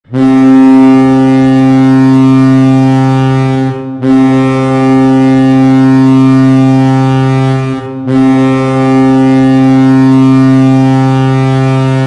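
Ice hockey goal horn blowing three long, low, steady blasts of about four seconds each, with brief breaks between them.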